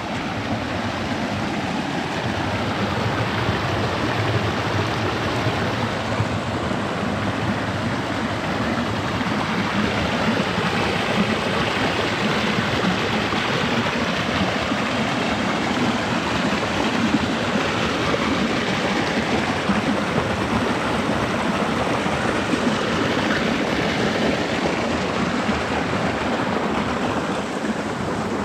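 Rain-swollen stream rushing over a small waterfall, a steady rushing of water running in flood after heavy rain.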